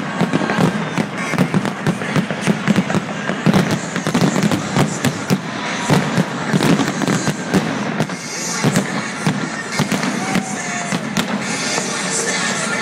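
Large aerial fireworks display: a dense barrage of bangs and crackles, several a second, thinning out over the last few seconds, with music playing underneath.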